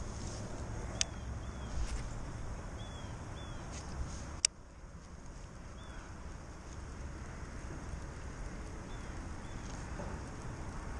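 Outdoor water ambience: wind rumbling on the microphone, with short bird chirps every second or two. Two sharp clicks, the louder about four and a half seconds in.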